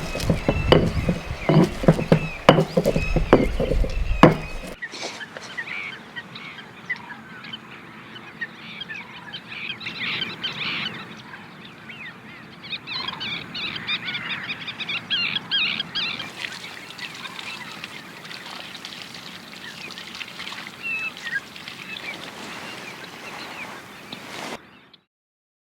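Chopping, a quick run of sharp knocks, for the first few seconds. Then an abrupt change to rural outdoor ambience full of birds chirping and calling, which cuts off suddenly near the end.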